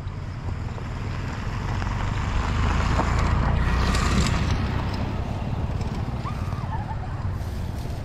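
Wind buffeting the microphone: a steady low rumble with a hiss that swells in the middle and eases off again.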